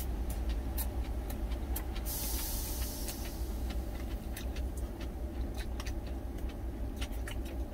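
Steady low hum of an idling truck engine heard inside the cab, with scattered small clicks of eating: chewing and a spoon against a stainless steel food container. A brief hiss comes about two seconds in.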